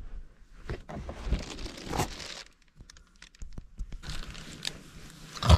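Close rustling and crinkling with scattered small clicks and knocks, like bedding being shifted and a phone being handled against the microphone. It goes quiet briefly about two and a half seconds in, and a sharper knock comes at the very end.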